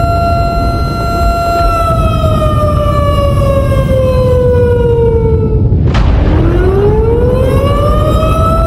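A loud, steady siren tone over a heavy low rumble. It slowly falls in pitch for about four seconds, breaks off with a sharp crack about six seconds in, then glides back up to its first pitch.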